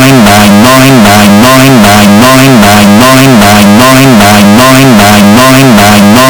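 Very loud music: a short pitched phrase rises and falls, looping about once a second over steady low tones.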